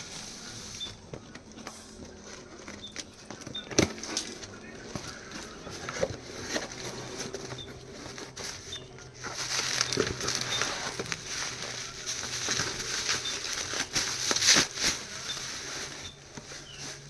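The packaging of an iPad mini 4 being handled and opened: rustling with scattered sharp clicks and taps, the rustling growing louder from about halfway through until near the end.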